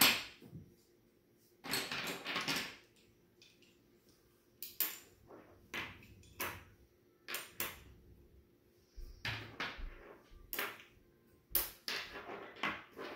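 Plastic magnetic building sticks and steel connector balls clicking together and clacking on a wooden tabletop as pieces are picked from a pile and snapped onto a chain. Irregular sharp clicks with short pauses between them, and a brief rattle of pieces being sorted early on.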